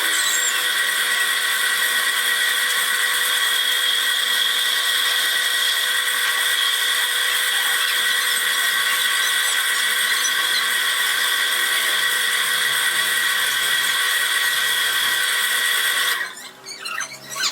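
A high-speed power tool running steadily with a high-pitched whine, cutting out briefly near the end.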